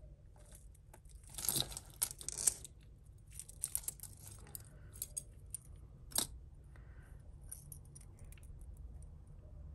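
Metal costume jewellery clinking and jangling as pieces are handled and shifted in a pile: a run of clinks about one and a half to two and a half seconds in, more scattered ones after, and a single sharp clink about six seconds in.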